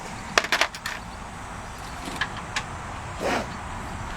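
Clicks and knocks from work under a car during an oil change: a quick run of sharp clicks about half a second in, two fainter clicks around two seconds, and a short swell of noise about three seconds in, over a steady low rumble.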